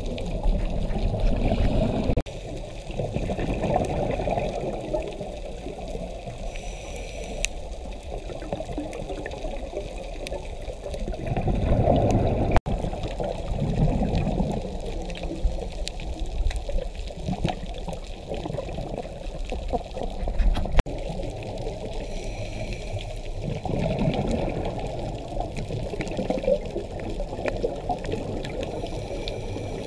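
Muffled underwater noise of a scuba diver's breathing: exhaled bubbles from the regulator bubble and gurgle in a surge about every ten seconds, heard through a camera's waterproof housing.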